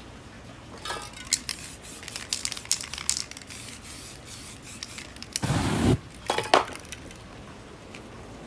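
Aerosol spray paint can sprayed in one loud blast lasting about half a second, five and a half seconds in, followed by a shorter burst a moment later. Before that comes a run of quick clicks and crackles.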